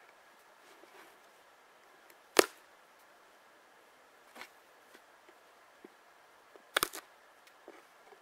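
Knife cutting the legs off a skinned snowshoe hare against a wooden board: a few sharp cracks of blade and bone on wood, the loudest about two and a half seconds in and a quick double crack near the end, with small knocks between.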